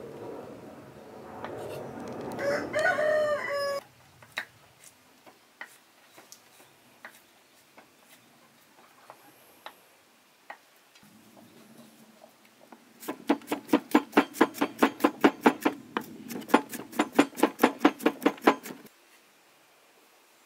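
A rooster crows in the first few seconds. Then a cleaver chops fast and evenly on a wooden cutting board, about four or five strokes a second for some six seconds, mincing garlic, after a few scattered single taps of the blade.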